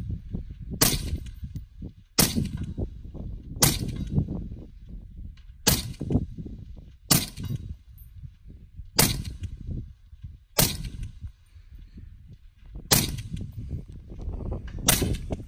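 Suppressed LMT MWS semi-automatic 7.62 NATO rifle with a SilencerCo Saker 762 suppressor, fired nine times at a steady pace, one shot every one and a half to two and a half seconds. Wind rumbles on the microphone between the shots.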